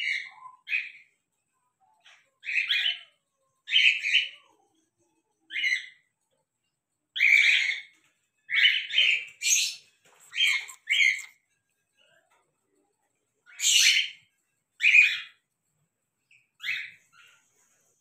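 Male cockatiel giving about fifteen short chirping calls in irregular bursts, some in quick pairs and triples, with pauses of a second or two between them.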